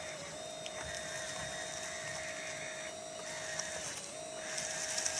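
Electric hydraulic pump of a 1/12-scale RC Liebherr 636 track loader whining steadily, with the higher whine of its electric drive motors switching on and off as it creeps forward. Near the end a rising crackle as the loader pushes into dry leaves.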